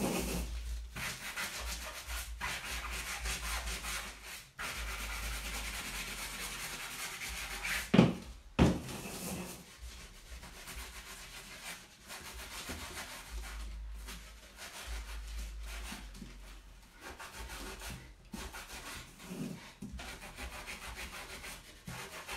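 A sanding block rubbed back and forth over a painted embellishment, a continuous scratchy sanding that distresses the paint to bring the white through. There are two sharp knocks about eight seconds in.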